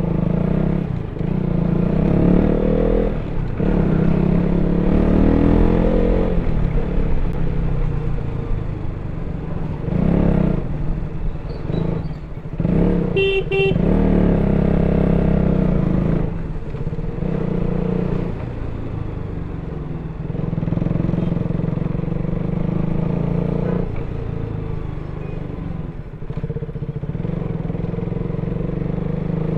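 KTM RC 200's single-cylinder engine on its stock exhaust, under way: the revs climb and drop again and again, with short dips between pulls as the rider shifts or rolls off the throttle. A vehicle horn sounds briefly about thirteen seconds in.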